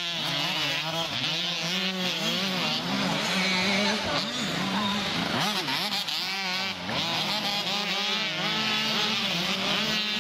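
Several youth motocross bikes racing together, their engines revving up and down in overlapping, constantly changing pitches as they accelerate and shut off around the track.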